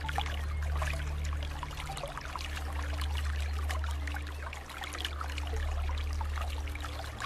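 Water bubbling and trickling, a dense crackle of small bubbles, over a low droning hum whose pitch shifts every second or two.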